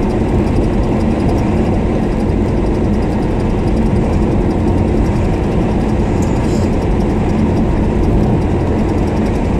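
A car driving at a steady speed: even engine hum and road noise, heard from inside the moving car.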